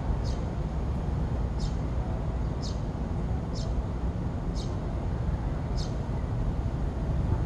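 Eurasian tree sparrows giving short single chirps, about one a second, over a steady low rumble.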